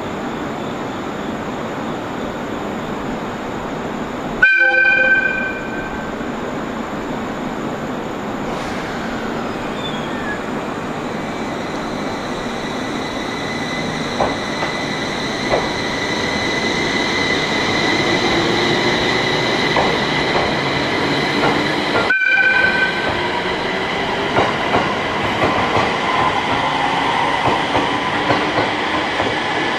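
A train horn gives two short blasts, about 4 seconds in and again about 22 seconds in, as an electric train pulls away from the station. A motor whine rises as it gathers speed, with wheels clicking over the rail joints.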